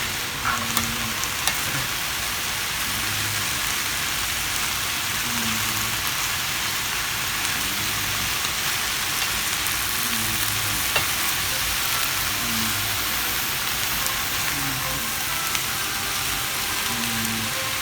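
Sautéing vegetables (onion, carrot, celery, bell pepper and mushrooms) sizzling steadily in a frying pan, with a few light clicks in the first second or two.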